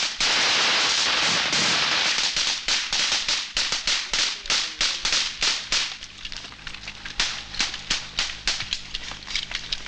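Gunfire from several Kalashnikov-type rifles: a dense, nearly unbroken rattle of shots for the first two seconds, then rapid separate shots that grow sparser and quieter after about six seconds.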